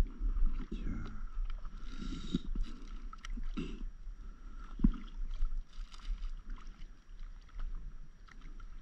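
Paddle strokes splashing beside an inflatable stand-up paddleboard, with water sloshing against the board, over a steady low wind rumble on the microphone. A single sharp knock comes about halfway through.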